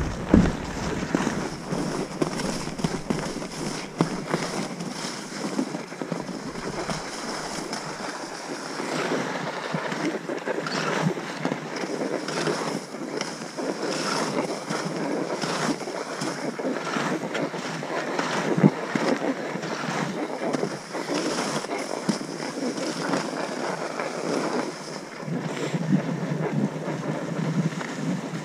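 Skis hissing and scraping over snow during a downhill run, a steady rushing that swells and eases with the turns, with one sharper scrape about two-thirds of the way through.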